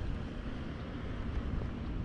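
Outdoor street ambience: an uneven low rumble of wind buffeting the microphone over faint, distant road traffic.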